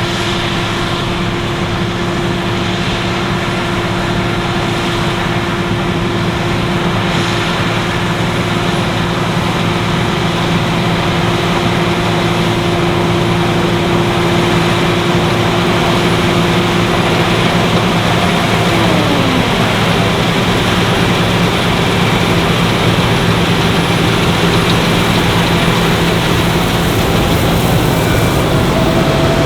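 Claas Lexion 770TT tracked combine harvester running under load while harvesting barley: a steady heavy engine and machinery drone with whining tones, one of which slides down in pitch about two-thirds of the way through, the whole growing slowly louder.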